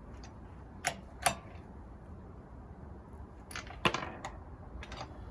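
A wrench clicking and clinking on steel wheel bolts: about six sharp metallic knocks, spread unevenly, the loudest a little under four seconds in, as the bolts are hand-tightened to a final snug fit.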